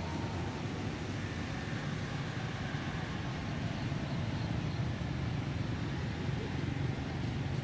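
Steady low rumble of outdoor background noise, even throughout, with no distinct single event.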